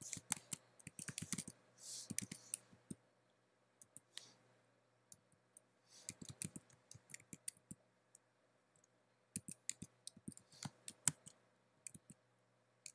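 Faint computer keyboard typing: irregular runs of keystroke clicks with pauses between them.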